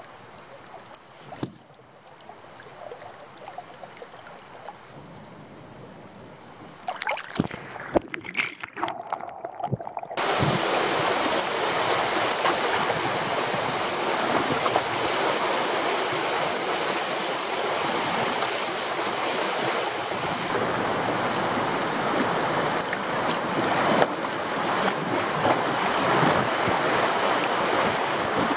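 Kayak running a low river rapid: a steady, loud rush of white water around the hull that starts abruptly about ten seconds in. Before that, quiet flat-water ambience with a few knocks and clicks on the kayak.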